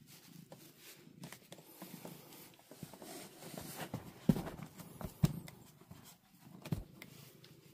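Cardboard rustling and scraping as a cat moves about with its paws in a cardboard box, with three sharp knocks in the second half.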